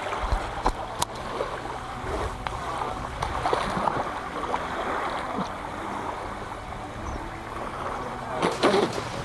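Shallow lake water sloshing and splashing around a person wading beside a floating RC boat, with scattered small clicks and knocks. Louder, more pitched sounds break in near the end.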